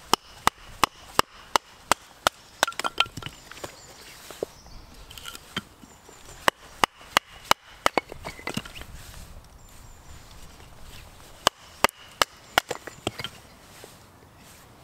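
Bushcraft knife batoned through a small piece of wood with a wooden baton to split it: sharp wooden knocks in three quick runs of strikes, with short pauses between.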